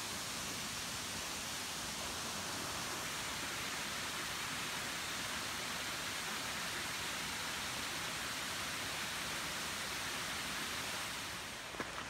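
Steady rush of a plunge waterfall's falling water, an even hiss that eases a little near the end.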